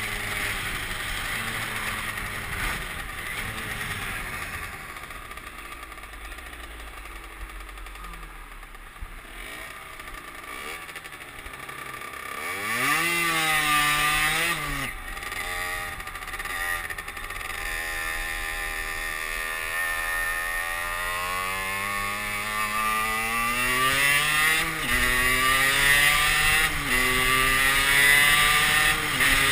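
Derbi Senda moped's two-stroke engine under way: it eases off and quietens, revs up sharply about halfway through with a quick gear change, then climbs steadily in pitch and gets louder through two more gear changes near the end. Wind rushes over the microphone throughout.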